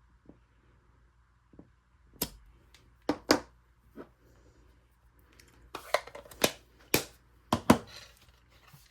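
A series of sharp clicks and taps from stamping supplies being handled on a craft table, a few scattered at first and coming closer together in the second half.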